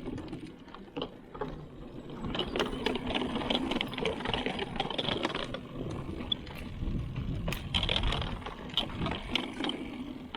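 A 2021 Giant Talon 2 mountain bike being ridden along a trail: a steady rolling rumble of the tyres with many sharp clicks and rattles from the bike.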